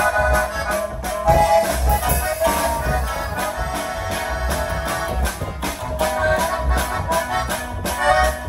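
Latin dance music with accordion over a steady, quick shaker-and-bass beat.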